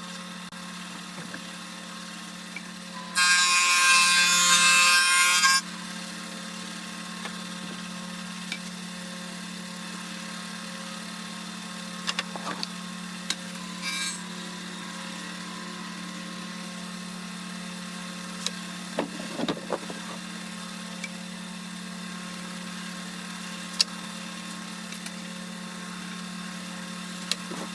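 A handheld power tool whines at high speed for about two and a half seconds, then stops. Under it is a steady low hum, followed by scattered light knocks and clicks of wood being handled.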